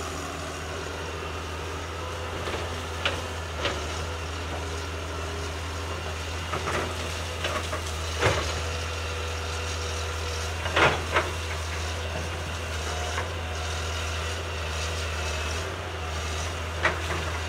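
Caterpillar 320C hydraulic excavator's diesel engine running steadily as the arm pushes through brush and small trees, with several sharp cracks of snapping wood, the loudest two close together just past the middle.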